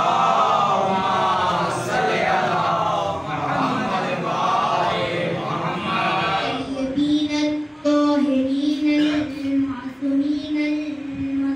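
Shia mourning chant (noha): several voices chant together, then about seven seconds in a boy's single voice carries on alone, holding long, steady notes.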